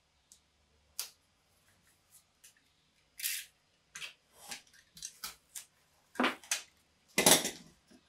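Snap-off utility knife trimming tape along the edge of a plywood piece: a string of short scrapes and clicks. Near the end come louder knocks as plywood pieces are handled and pressed together.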